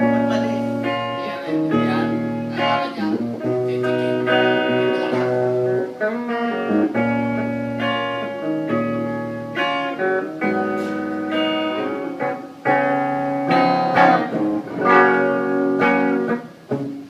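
Live band playing an instrumental passage of a ballad, guitar to the fore over a low bass line, with no singing.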